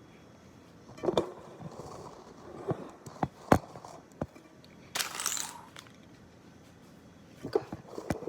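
Kitchen handling noises: a scatter of sharp knocks and clicks, and a short papery rustle about five seconds in, as packets of instant oatmeal and a bowl are handled.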